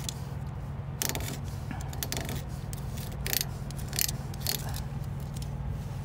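Duct tape that has gone soft and gummy from exhaust heat being scraped and peeled off a semi-truck's cracked exhaust pipe, in several short rough scraping bursts, over a steady low hum.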